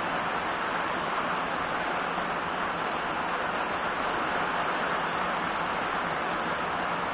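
Heavy rain falling steadily: an even, unbroken hiss of a tropical downpour on foliage, grass and road.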